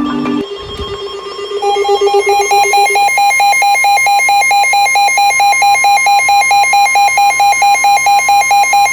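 Emergency alert tones for a Special Marine Warning: a steady high tone with a fast, evenly repeating electronic beep sounding over it. The tones come in about a second and a half in.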